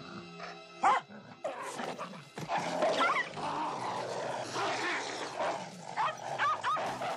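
A dog and a wolf fighting: rough snarling and growling, broken by sharp high yelps about a second in, around three seconds in, and twice near the end.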